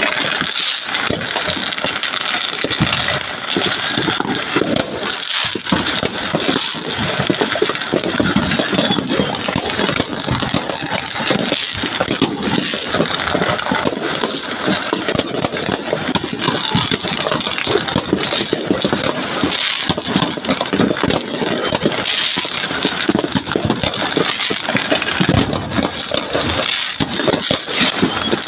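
Fireworks going off without a break: a dense, steady crackle of many rapid pops and bangs.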